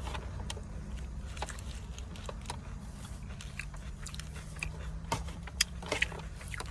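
A person chewing and biting food close to the microphone: scattered soft crunches and wet mouth clicks, over a steady low hum.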